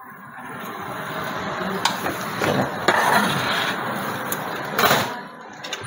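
Metal tongs and a small steel pan knocking and scraping on the deck of an open commercial deck oven, a few sharp clinks over a steady rushing noise.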